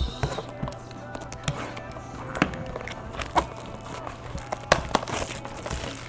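Clear plastic shrink-wrap being torn and crinkled off a sealed trading-card hobby box, with scattered sharp crackles and clicks as the box is handled.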